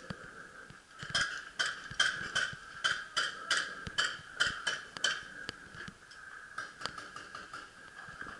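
Paintball fire: a quick string of sharp pops, about three a second, from about a second in to about five seconds in, then a few scattered ones.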